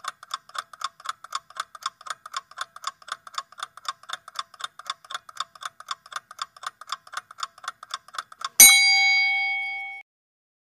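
Quiz countdown-timer sound effect: rapid, even clock ticking, about four ticks a second, then a single bell ding about eight and a half seconds in that rings on for over a second before cutting off. The ding marks the end of the answer time.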